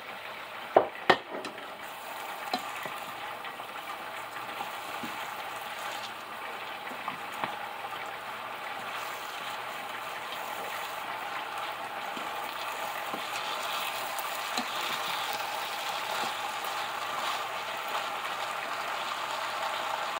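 Rice sizzling in a hot pan while a wooden spoon stirs and scrapes through the grains, the sizzle swelling slowly louder. Two sharp knocks about a second in.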